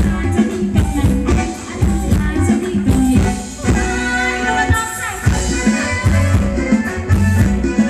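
Luk thung ramwong dance music from a live band over a PA system, with a steady drum beat and percussion running through it.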